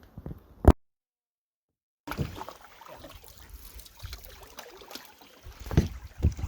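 Canoe paddling on a lake: light water swishes and dribbles from paddle strokes, with a few low knocks near the end. A sharp click a little under a second in is followed by about a second of dead silence.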